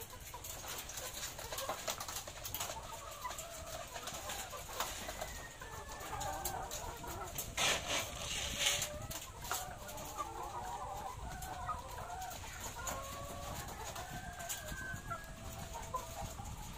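A flock of caged laying hens clucking and calling continuously, many short wavering calls overlapping. A short, loud rustling noise rises over them about eight seconds in.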